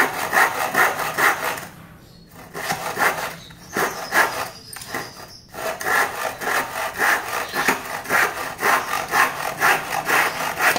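Bahco X97 hand saw cutting through a length of kaso timber in quick, even push-pull strokes, about two to three a second. The strokes break off briefly about two seconds in and again about five and a half seconds in, then pick up again.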